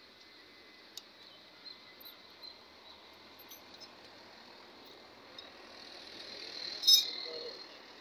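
Faint outdoor background noise with a few small ticks and high chirps. It slowly builds to a brief, sharp high-pitched sound near the end, which then fades.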